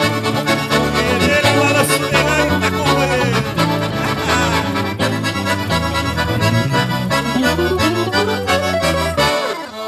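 A gaúcho band led by accordion plays the instrumental close of the song, with a steady bass line under a regular beat. The bass drops out near the end.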